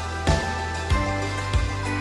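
Background music with a steady beat: a kick drum about every two-thirds of a second over a held bass and sustained notes.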